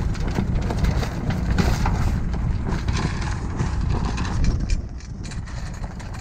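Sailboat's small inboard engine running under a stream of small knocks while the mainsail is hoisted. The level drops suddenly about five seconds in.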